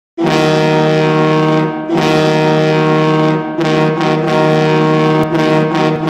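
Mack truck air horn used as a hockey goal horn, sounding a chord of steady tones in a series of long blasts with brief breaks between them, signalling a goal.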